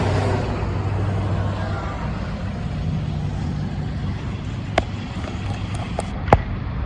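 Motor vehicle running with a steady low engine hum and traffic noise, and two sharp clicks near the end.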